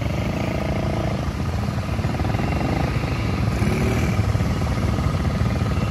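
Small off-road engines of quad bikes (ATVs) and a buggy running steadily.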